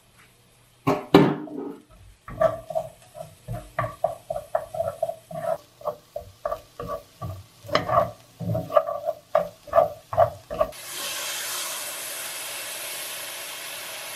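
Chopsticks stirring chopped pork, shallots, garlic and scallions in a stainless steel pan, tapping and scraping against the metal with a ringing clink about twice a second, after a louder clatter about a second in. About three-quarters of the way through, the tapping stops and a steady hiss takes over.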